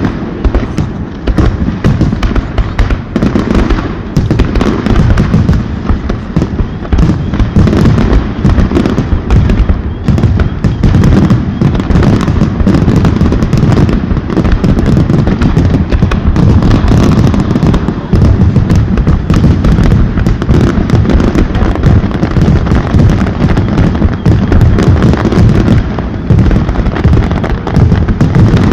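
Fireworks display in a rapid, continuous barrage of overlapping bangs and crackles, with no pauses.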